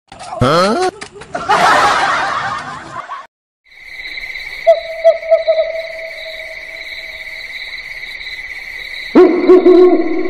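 Spooky night ambience: owl hooting over a steady high insect trill. The hooting wavers and becomes louder and fuller about nine seconds in. Before it comes a few seconds of loud sound with sliding pitch, then a brief silence.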